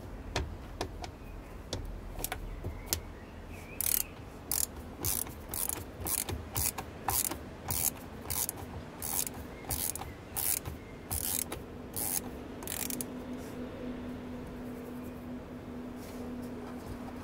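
Socket ratchet on an extension clicking in short repeated swings, about one or two a second, as it loosens a radiator fan shroud screw; the clicking stops about three-quarters of the way through once the screw is free.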